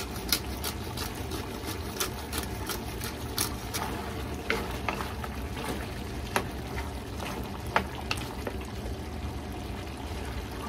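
Wooden spatula stirring diced pork simmering in its liquid in a nonstick wok, with sharp irregular taps and scrapes of the spatula against the pan over a steady sizzle. The taps come several a second at first and thin out after about four seconds.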